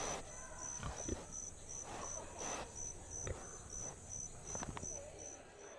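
An insect chirping, a high-pitched pulse repeating about three times a second, over scattered knocks and rustling.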